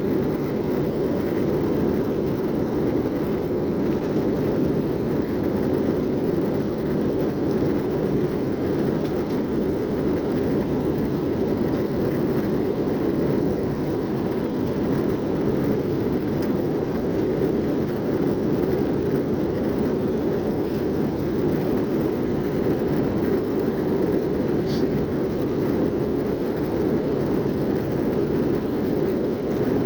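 Steady cabin roar of an Airbus A321-231 in flight after takeoff: its IAE V2500 turbofans and the rush of air past the fuselage, heard inside the cabin.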